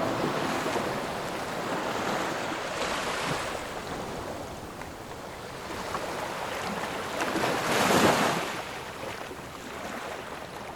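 Ocean surf washing in, with wind, swelling to its loudest about eight seconds in.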